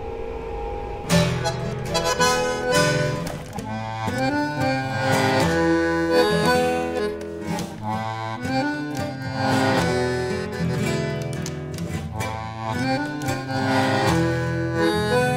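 Instrumental tango: a bandoneón plays a melody with chords over a guitar accompaniment. It opens on a quiet held note, and the full ensemble comes in about a second in.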